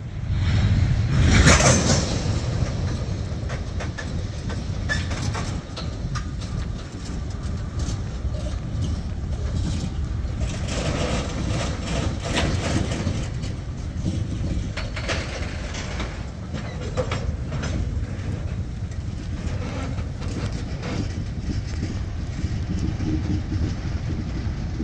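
Freight train tank cars rolling past: a steady rumble of steel wheels on the rails with irregular clicks and clanks. There is a loud clatter about a second and a half in.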